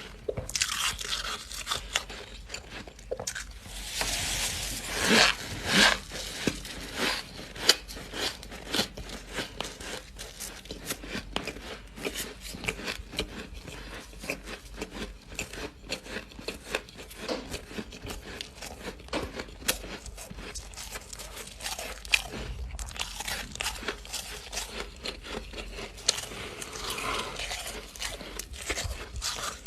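Close-miked biting and chewing of squeaky freezer frost: continuous crisp, crackling crunches, with louder bites about four to six seconds in and a dense run of crunching near the end.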